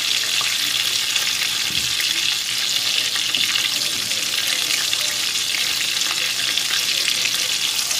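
Breaded chicken cutlets shallow-frying in oil in a pan, a steady sizzle, with one faint knock about two seconds in.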